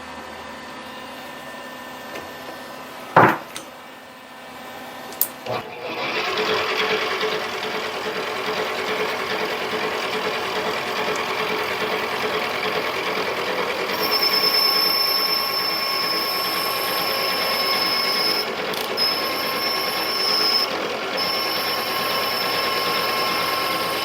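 Mini lathe switched on with a loud click about three seconds in and a couple of smaller clicks, then running steadily from about six seconds on. A high steady whine joins the running noise about halfway through.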